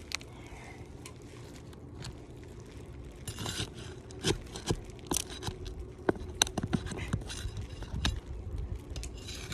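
Metal flat scraper blade scraping and prying under asphalt roof shingles to break the seals and work out the nails, with sharp clicks and scrapes that come thicker and louder from about a third of the way in.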